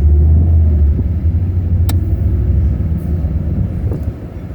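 Low, steady rumble of a Jeep running, with a single sharp click about two seconds in.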